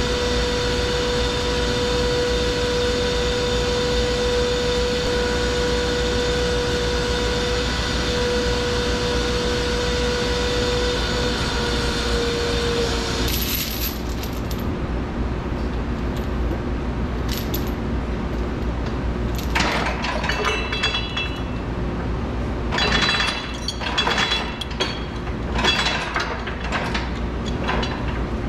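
Hyster forklift's hydraulic pump motor whining steadily as the mast lifts the carriage, dropping slightly in pitch just before it cuts off about halfway through. After that come scattered metallic clicks and clanks.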